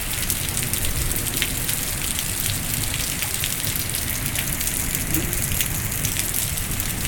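Heavy rain pouring down steadily: a dense, even hiss of rain with many close, crisp raindrop taps.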